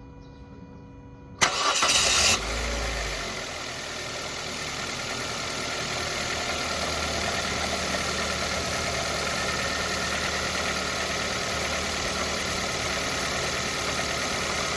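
Mazda Verisa engine cranked by the starter about a second and a half in, catching almost at once and then idling steadily. The engine is being run to show a knock.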